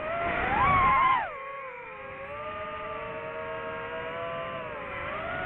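DJI FPV drone's motors and propellers whining. The pitch rises sharply and gets loud as the throttle is pushed, then drops about a second in to a steadier, lower whine.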